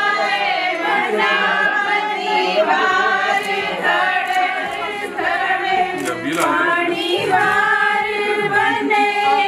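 A group of women singing together without instruments, their voices overlapping.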